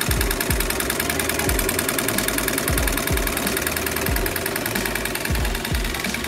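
Homemade tin-can Stirling engine running steadily, a fast, even mechanical clatter of its crank and linkage, with occasional dull low thumps.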